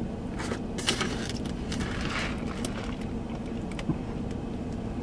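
A large paper fountain-drink cup being handled and sipped through a straw: short rustles and clicks, with a longer rustle about two seconds in. Under them is a steady low hum in the car cabin.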